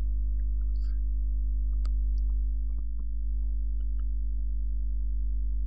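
Steady low electrical hum on the recording, with a faint higher tone above it, and two or three faint clicks near the middle.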